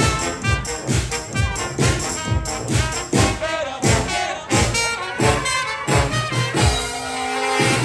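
Oompah-style brass band playing live: brass over a steady beat. Near the end the beat stops and the band holds a long chord.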